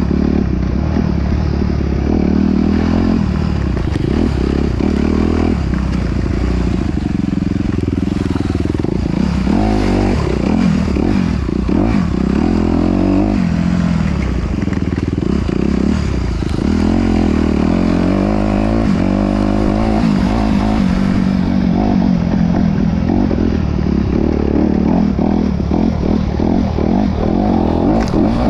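Off-road vehicle engine running continuously under load, its pitch rising and falling as the throttle changes.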